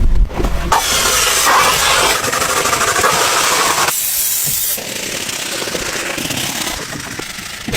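Pressure washer jet spraying water onto a car, a steady loud hiss that changes tone several times and turns a little quieter about five seconds in.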